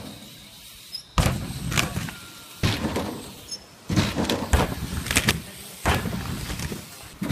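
About six sudden thuds and rattles of BMX bikes hitting and rolling on a tarp-covered wooden jump ramp, each dying away within about a second.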